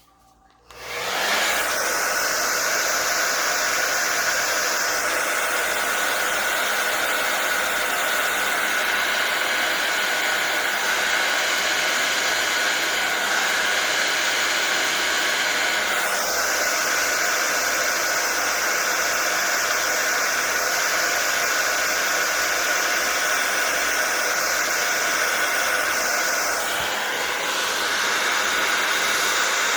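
Blow dryer with a nozzle attachment switched on about a second in, running steadily with a rushing blast of air and a constant whine, blowing out wet acrylic pour paint; its higher hiss comes and goes a few times as it is moved.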